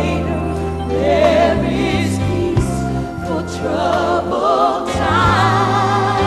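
Gospel music: voices singing with heavy vibrato, a choir among them, over a band whose bass moves from note to note.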